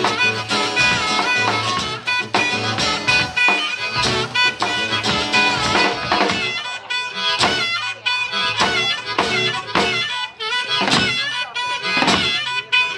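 Live blues-rock groove on acoustic guitar and drum kit, with a harmonica lead of held, bending notes over steady drum hits in an instrumental break between sung lines.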